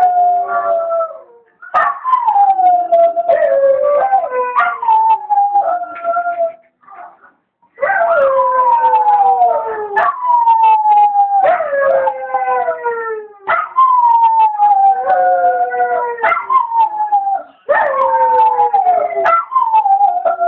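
Two dogs howling together in long howls that fall in pitch and overlap one another. They come one after another with short breaks between them.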